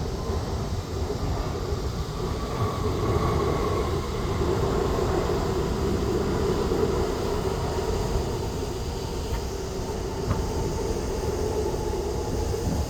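Jet airliner engines running, a steady low rumble with a faint whine above it.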